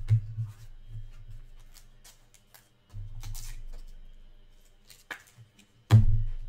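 Hands setting trading cards down and knocking on a tabletop: a few dull thumps, the loudest about six seconds in, with light clicks and rustles of card handling between.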